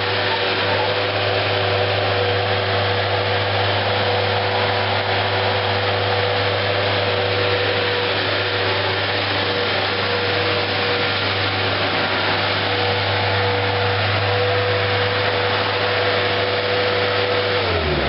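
Bobcat 7753 skid steer's Kubota V2203 four-cylinder diesel running at high throttle with a steady whine as the machine drives and turns. Near the end the pitch drops as the engine is throttled back toward idle.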